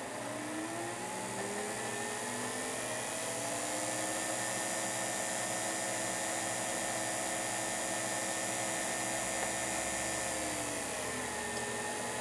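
Electric whine of the tester's small motor, rising in pitch over the first few seconds, holding steady, then dropping about eleven seconds in. The micro gearmotor under test, running at about 40 rpm on digital power, adds almost nothing; the whine is the tester's motor.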